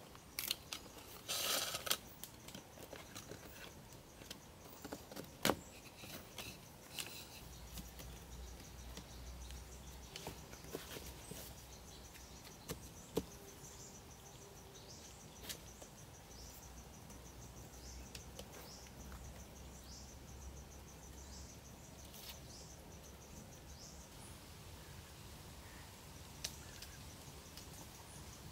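Hollow bamboo sections knocking and clicking as they are set and pressed upright into an earth wall, with handling rustles; the sharpest knocks come near the start and about five seconds in. A faint, steady, high insect trill runs behind.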